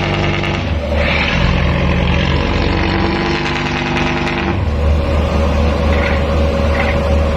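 Boat engines running steadily with a deep rumble. A second engine note sounds over it for about the first four and a half seconds, then drops away as the low rumble strengthens.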